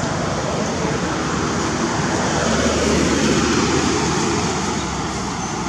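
Steady rumble of a passing motor vehicle, swelling to a peak about halfway through and easing off as it goes by.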